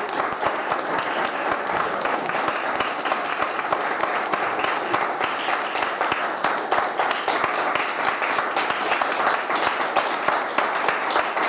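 Audience applauding: a steady, dense patter of many hands clapping, with some voices mixed in.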